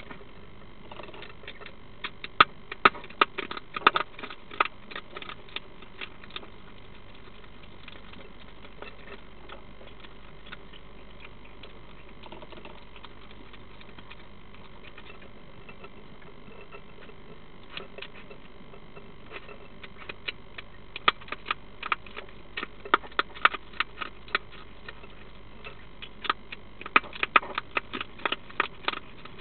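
European hedgehog crunching food at a feeder, quick runs of sharp crunches in two bouts: one in the first few seconds and a longer one from past halfway to the end.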